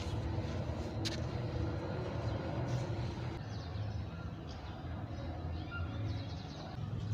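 Outdoor ambience: a steady low rumble of distant road traffic, with a few short bird chirps and a brief quick trill in the middle.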